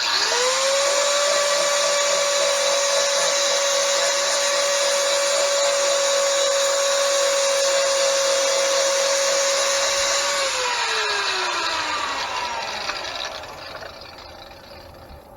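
Electric grinder spinning up, then running at a steady high whine for about ten seconds while grinding metal off a bronze bushing. It is then switched off and the whine falls in pitch as it winds down over a few seconds.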